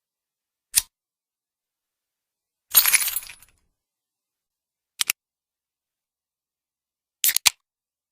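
Pop can sound effects: a single sharp click, then a louder short hissing burst about three seconds in, such as a can tab cracked open, then two quick double clicks.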